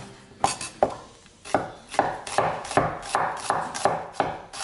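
A cleaver chopping shallots on a wooden cutting board: sharp knife strikes against the board, a couple early, a brief pause about a second in, then a quick steady run of about four a second.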